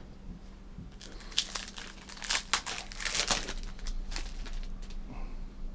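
Trading-card pack wrapper being crinkled and torn open. It makes a run of sharp crackles that are loudest in the middle and die away after about four seconds.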